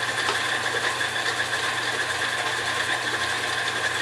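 Electric stand mixer running steadily, its motor giving a constant hum as it beats cookie dough.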